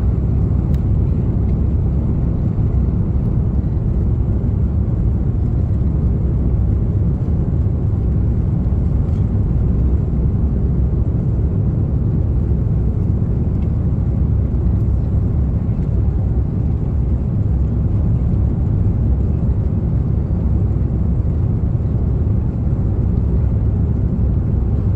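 Steady low rumble of airliner cabin noise, engines and rushing airflow, heard inside the cabin of an Airbus over the wing on approach with the flaps extended.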